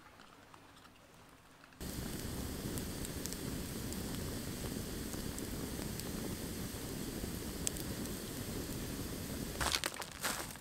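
Wood campfire burning close up: a steady rush of flames with sharp crackles and pops, starting suddenly about two seconds in. Near the end it gives way to footsteps and knocks of wood as a log is carried.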